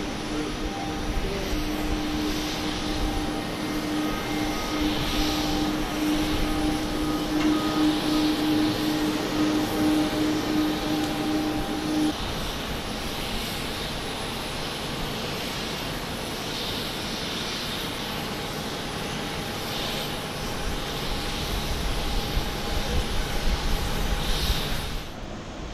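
Steady aircraft engine noise across an airport apron: a rushing hiss with faint whining tones, and a low steady hum that cuts off about halfway through.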